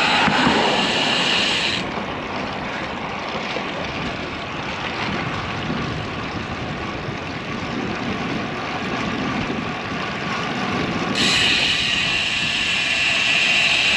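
Wind rushing over the microphone and tyre noise from a road bike riding along a paved road. A steady higher-pitched buzz is heard at the start, drops away about two seconds in, and comes back near the end.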